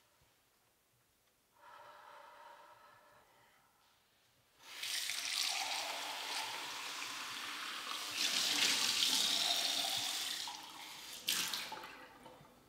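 Water rushing with a loud, steady hiss for about six seconds, louder in its second half. A fainter sound comes a few seconds before it, and a sharp knock near the end fades away.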